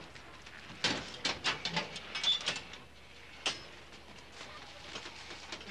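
Knocks and clatter from movers handling mattresses and furniture at the back of a removal truck: a quick run of knocks in the first half, then a single knock about three and a half seconds in.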